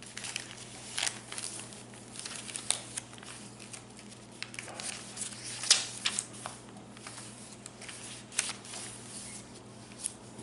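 Paper and card rustling and crinkling as the pages and tags of a handmade junk journal are handled, in irregular soft crackles with a sharper snap about halfway through.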